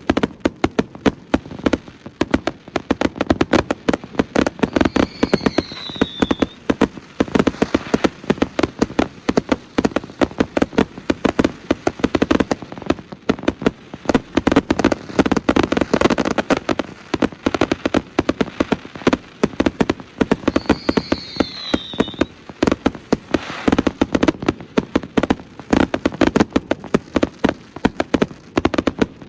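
Astroboy consumer fireworks going off in a dense, continuous barrage of bangs and crackles that swells and eases without stopping. Twice, about five seconds in and again near twenty-one seconds, a short falling whistle sounds over the barrage.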